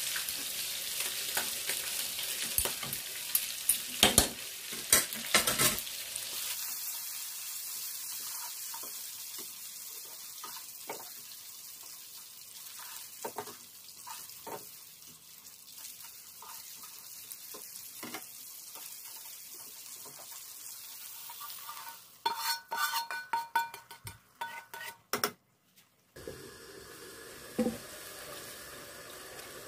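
A metal ladle scraping and clinking against an aluminium pot as cooked sliced green beans are stirred, over a steady sizzle. After a quieter stretch of sizzling with occasional clicks, there are a few seconds of quick metal clattering, then water being poured into an oily frying pan near the end.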